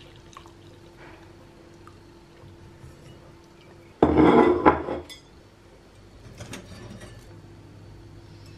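A milky drink poured into a ceramic mug, with crockery clinking. The pour is loud for about a second near the middle, followed by a few faint clinks as the mug and plate are set on the table.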